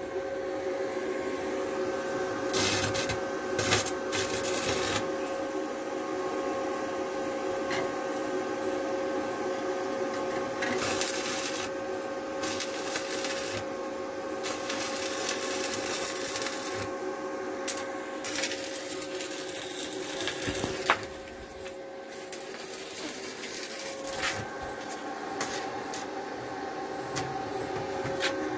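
Electric arc welding on the steel of a combine harvester's threshing drum: the arc crackles and sizzles in stretches of one to a few seconds over a steady hum. A sharp click comes about two-thirds of the way through, after which the sound is quieter.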